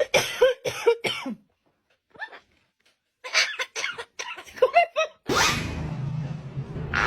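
A parrot imitating coughing: a run of short coughs, a pause, then a second run of coughs. From about five seconds in, a steady hiss with a low hum takes over.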